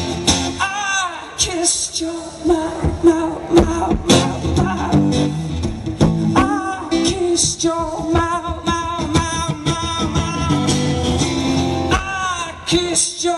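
Live acoustic song: a man singing with long, wavering held notes over a strummed acoustic guitar, heard through a stage PA.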